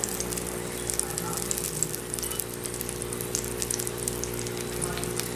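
Hot oil sizzling in a cast iron pan, a steady patter of small crackles and pops, over a steady low hum.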